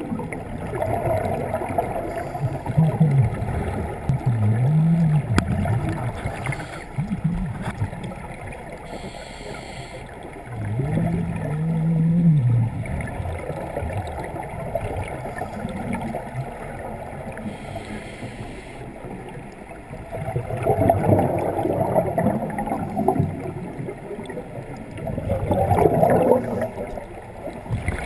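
Underwater scuba sound: a regulator's breathing and exhaled air bubbles gurgling and rumbling, with louder bubble surges near the end and a low wavering hum twice in the first half.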